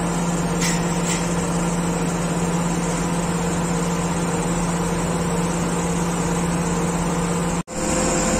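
Diesel engine of an XCMG truck crane running steadily: an even, low hum that drops out for a moment near the end and then comes back.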